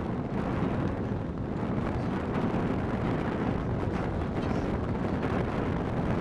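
Wind buffeting the camera microphone: a steady low rumbling noise.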